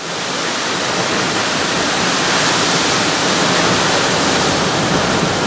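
Hurricane-force wind and driving rain in a hurricane eyewall: a loud, dense, steady rushing that swells up over about the first second and then holds.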